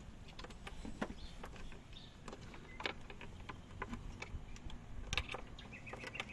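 Irregular small plastic clicks and taps as a dash cam power cable is tucked along a car's interior trim panel and handled at the fuse box, with a few sharper clicks about one, three and five seconds in.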